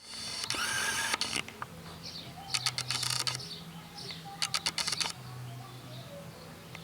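Pet rat grinding its teeth (bruxing), heard as two runs of rapid clicking, the first about two and a half seconds in and the second about four and a half seconds in. Bruxing like this is typical of a relaxed, content rat.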